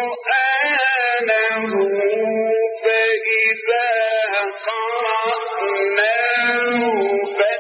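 A male Quran reciter chanting in the melodic mujawwad style, holding long notes in a high register that bend and waver with ornaments, with short breaks between phrases.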